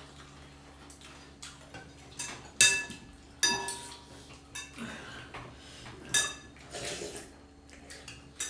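Metal spoon clinking and scraping against a ceramic soup bowl during a meal of noodle soup, several sharp clinks that ring briefly.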